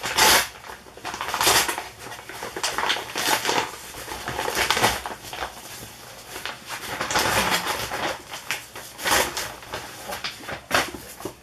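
Brown kraft paper package rustling and crinkling as it is pulled open and handled, in an irregular run of loud crackles and scrunches.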